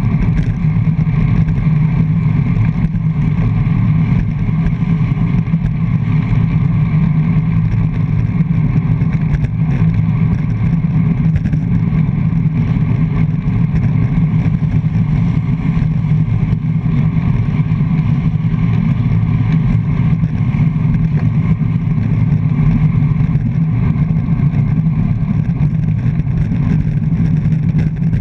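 Wind noise on a handlebar-mounted GoPro on a road bike at racing speed: a loud, steady, low rush.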